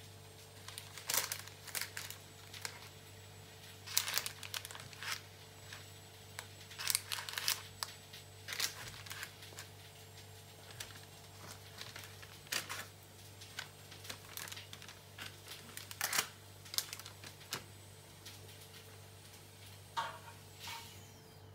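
Baking parchment crinkling in short, irregular rustles as grilled vegetable slices are moved about on a lined baking tray with tongs, over a steady low hum.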